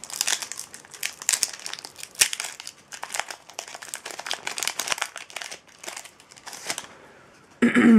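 Foil wrapper of a Yu-Gi-Oh booster pack crinkling and being torn open by hand, a dense run of crackles that stops near the end.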